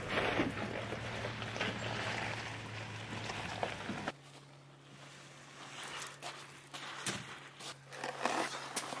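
Pickup truck engine running at low speed as the truck creeps over rough shoreline ground. About four seconds in, this cuts to quieter sound with a few sharp knocks as driftwood logs are lifted and shifted.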